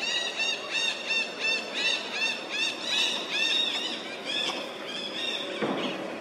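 A baby macaque crying: a rapid run of short, high-pitched arched cries, about three a second, that stops about five and a half seconds in, followed by a brief rougher sound near the end.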